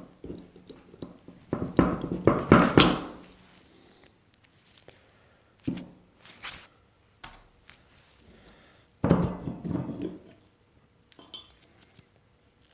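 Metal parts of a vintage table fan being handled during disassembly: a series of thunks and clinks, with the busiest clatter about two seconds in and again about nine seconds in.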